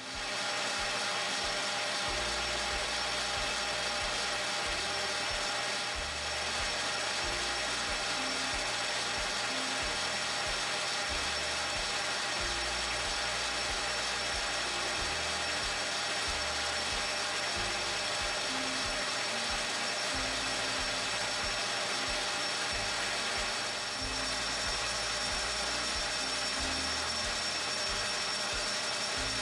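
Metal lathe running and turning a steel workpiece supported by a live center, a steady machine sound with several held tones.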